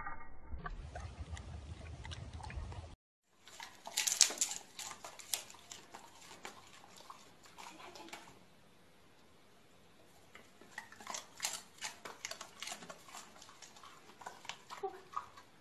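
A low rumble for about three seconds, then a short break and scattered sharp clicks and taps in two clusters, from dogs' claws and movement on a wooden floor.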